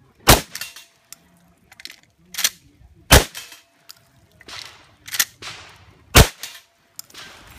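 Pump-action shotgun fired three times, the shots about three seconds apart, with quieter clacks between them as it is cycled and the steel knockdown targets are hit.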